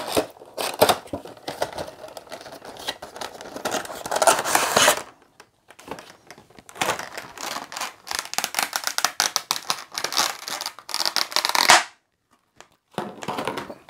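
A cardboard Funko Pop box is opened and its clear plastic window insert is pulled out and separated, with plastic crinkling and cardboard rustling. The rustling comes in two long spells with a short lull between them, then a second of near silence and one last brief rustle.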